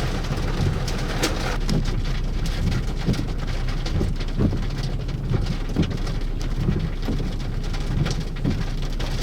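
Rain falling during a thunderstorm, with many scattered single drops ticking irregularly over a steady low rumble.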